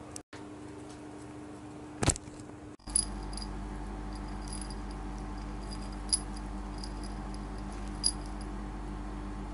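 A Siberian chipmunk foraging in a ceramic bowl of dried corn kernels and seeds, gathering food into its cheek pouches: small sharp clicks of kernels against the bowl, a few times a second at most, the loudest about three, six and eight seconds in. One sharp knock comes about two seconds in, before them, and a low steady hum runs underneath.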